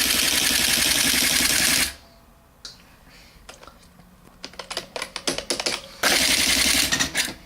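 Panasonic KX-R210 electronic daisy-wheel typewriter at work. Its mechanism makes a loud, rapid continuous clatter that stops about two seconds in. Separate key clicks and strikes follow, then another rapid clatter near the end.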